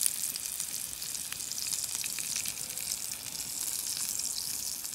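Tomahawk steak sizzling on the grill bars of a wood-fired asado grill: a steady high hiss peppered with small pops and crackles as butter and meat juices run down into the grill's gullies.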